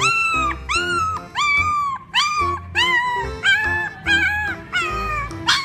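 A small dog, a Jack Russell terrier, yipping again and again, about two short high whining yips a second, a few lower-pitched in the second half, over background music.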